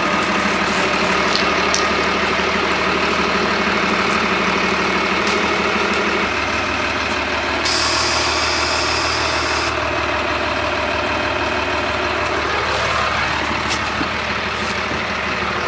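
Diesel engine of an M35A3 deuce-and-a-half truck running steadily, its note dropping about six seconds in. Shortly after, a hiss of air lasts about two seconds.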